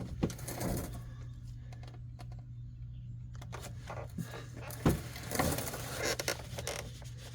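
Faint rustling and light clinks of hands and tools working under a car while the area around the oil drain plug is being cleaned, with one sharper knock about five seconds in. A steady low hum runs underneath.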